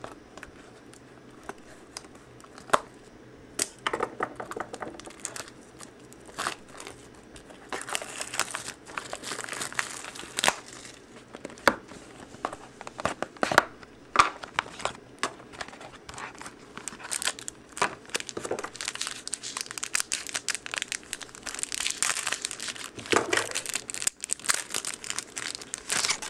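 Plastic shrink wrap being torn and crinkled off a sealed box of trading cards: a few scattered clicks and rustles at first, then dense crinkling and tearing from about eight seconds in.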